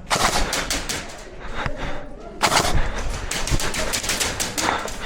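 Airsoft guns firing in rapid full-auto bursts: a burst for about the first second, then longer strings of rapid shots from about halfway through.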